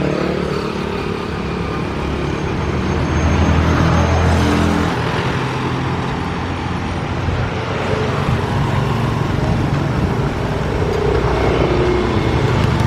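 Street traffic: motor vehicles running past in a steady rumble, with one louder vehicle going by about three to five seconds in.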